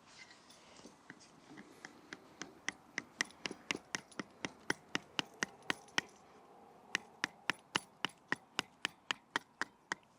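Quick, light taps of a wooden baton on the spine of a Victorinox Ranger Swiss Army knife blade, batoning it through a small piece of wood: sharp wooden knocks about four a second, growing louder, with a short pause just after the middle.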